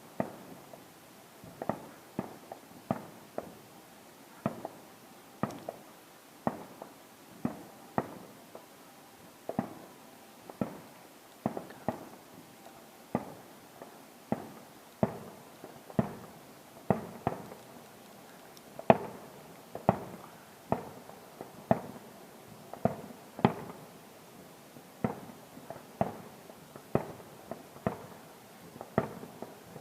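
Aerial firework shells bursting in a continuous, irregular barrage of bangs, more than one a second, each with a short echoing tail.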